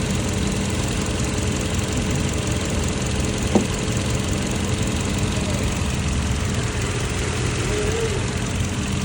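Car engine idling steadily with a constant low drone and hum, the noise attributed to a bad PCV valve. A single short click sounds about three and a half seconds in.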